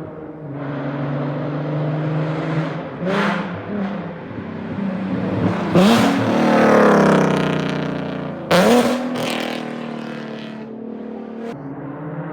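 Nissan 370Z's 3.7-litre V6 with long-tube headers and a Tomei exhaust, running steadily and revved three times: a short blip about three seconds in, a long rev about six seconds in that sinks slowly back, and a sharp rev about halfway between eight and nine seconds.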